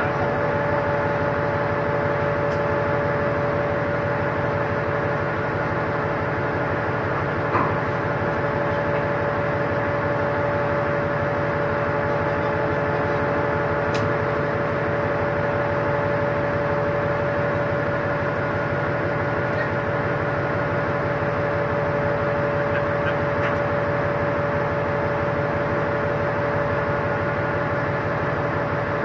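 Steady hum of a ship's machinery: a constant drone with a few unwavering tones. One short click sounds about seven seconds in and another faint tick about halfway.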